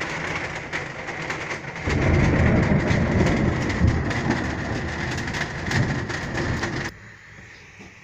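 Torrential rain pouring down, with a long roll of thunder that sets in about two seconds in and rolls on for several seconds. The sound then drops off abruptly to a much quieter hiss near the end.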